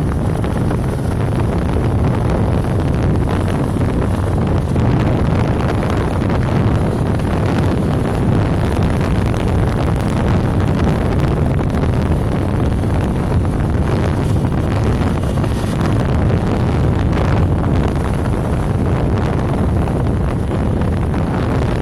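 Steady wind buffeting the microphone on a moving motorcycle, with road and engine noise beneath it.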